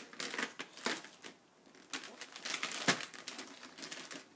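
Wrapping paper crinkling and rustling in irregular bursts as a baby paws and pulls at a wrapped present, with one sharper knock about three seconds in.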